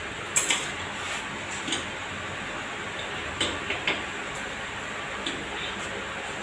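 Metal clicks and clinks from a rod working the lid nuts of a stainless steel vertical autoclave as they are tightened, a handful of irregular ticks over steady background noise.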